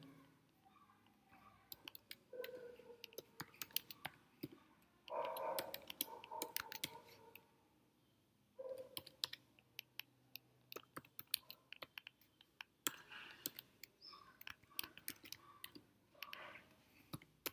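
Faint typing on a computer keyboard: irregular runs of quick keystroke clicks with short pauses between them.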